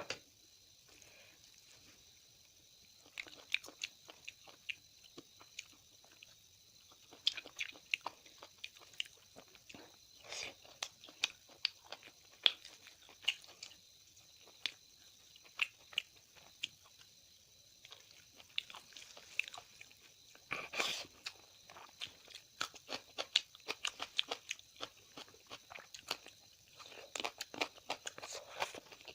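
A person eating close to the microphone: biting and chewing with crunches and wet mouth clicks in irregular clusters, starting about three seconds in.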